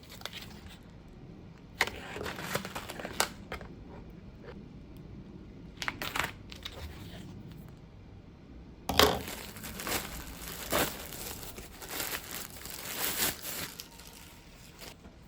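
Irregular crinkling and rustling with sharp little clicks, sparse at first and busier and louder in the second half.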